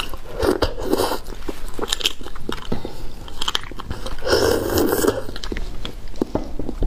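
Close-miked eating sounds of beef bone marrow: wet sucking and chewing as the marrow is drawn out of a braised bone section, with several bursts of slurping and many sharp mouth clicks.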